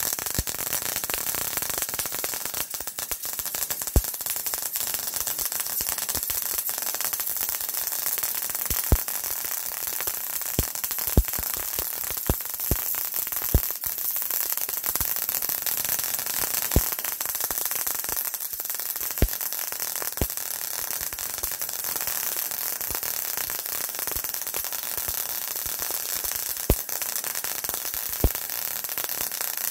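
A small arc welder running one continuous bead: a steady hiss with scattered sharp pops and crackles. It is filling a hole about 3/4 inch wide and 3/4 inch deep with weld.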